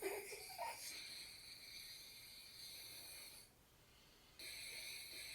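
Breath blown through a balloon cut open at both ends, a steady airy rush with air passing through easily, as through an open, unobstructed windpipe. It stops for about a second a little past halfway, then starts again.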